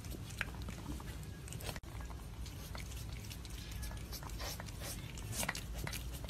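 A cat eating from a plate: scattered short wet clicks and smacks of chewing and licking over a steady low background rumble.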